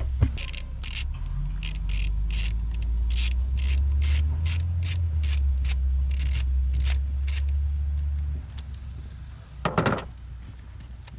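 Socket ratchet wrench clicking as it backs out the 7mm bolt holding an ignition coil on a Ford 5.4L three-valve V8, in quick strokes about two to three a second that stop about seven and a half seconds in. A steady low hum runs beneath until about eight seconds in.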